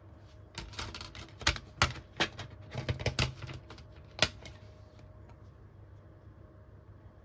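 A run of sharp plastic clicks and taps from handling a DVD case, coming close together in the first half, with the loudest clicks about a second and a half, two seconds and four seconds in. After that only faint room hum remains.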